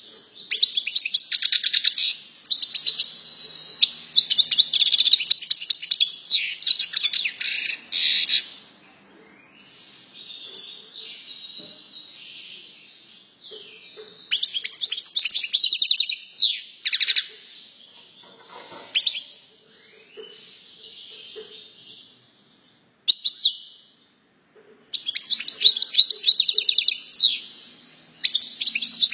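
Caged major goldfinch (Siberian race of the European goldfinch) singing: long phrases of fast, high twittering notes, louder and quieter by turns. A break of about two seconds comes near the end before the song starts again.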